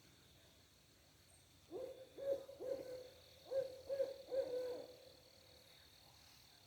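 An owl hooting: two phrases of three or four hoots each, every note sliding up at its start, beginning about two seconds in.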